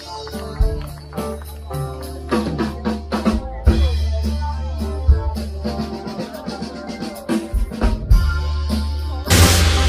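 Electronic dance music with a heavy sustained bass line and drum hits, swelling into a burst of rushing noise near the end.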